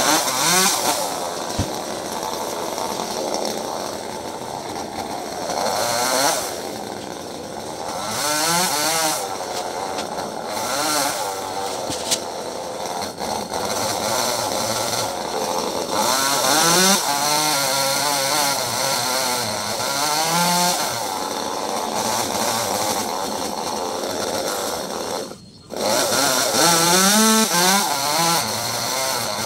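Two-stroke chainsaw running loud, revving up and easing off over and over while cutting wood, its engine pitch rising and falling with each cut. The sound drops out for a moment near the end, then comes back.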